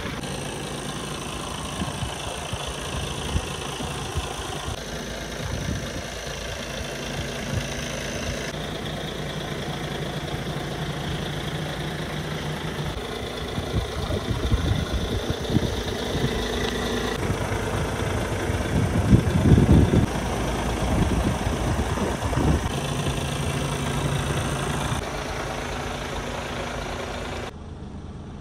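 Iveco S-Way 460 tractor unit's engine idling steadily, with a louder stretch of low rumble about two-thirds of the way through and a drop in level near the end.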